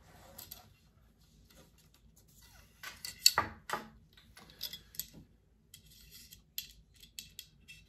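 Handling sounds as a fly rod is drawn out of its rod tube and turned in the hands: a cluster of scrapes and clicks about three seconds in, then lighter clicks and taps.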